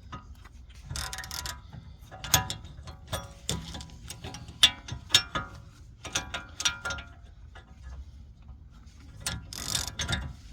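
Hand tools working the hub puller's nut: uneven ratchet-like clicking and metal-on-metal clinks, with a few sharp knocks. The puller's threads are damaged, so it will not turn by hand and has to be forced with a tool.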